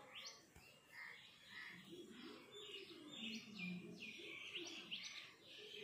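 Faint bird chirping in the background: many short chirps, irregular and a fraction of a second apart.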